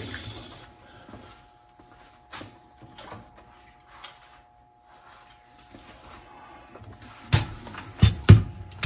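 Handling knocks and clicks on a workbench: a few faint clicks, then three sharp, louder knocks in the last two seconds.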